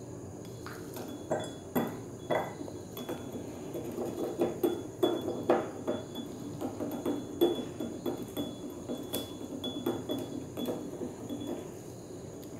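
A glass stirring rod clinks and taps irregularly against the inside of a glass conical flask as it stirs a liquid, a few clinks a second starting about a second in, with a faint glassy ring.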